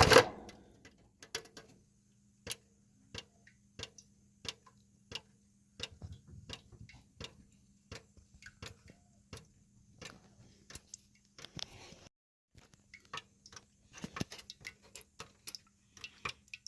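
A loud knock, then a steady run of short, sharp clicks about one and a half a second as a push-fit plumbing fitting is worked back and forth on copper pipe.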